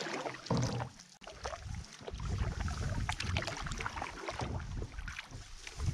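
Canoe paddle strokes in calm lake water, with splashing and dripping from the blade. From about two seconds in, a low wind rumble sits on the microphone.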